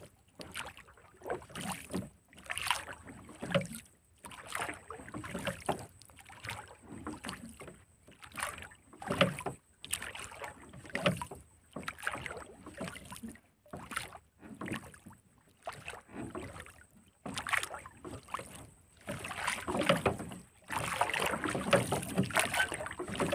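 Water lapping and slapping against a small wooden boat's hull in short splashy bursts, roughly one a second, busier and louder near the end.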